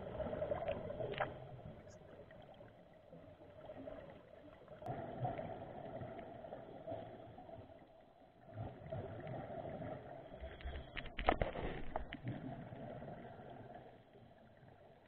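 Muffled underwater sound through an action camera's waterproof housing: a scuba diver's regulator breathing, with exhaled bubbles swelling and fading about every four seconds. A couple of sharp knocks near the end.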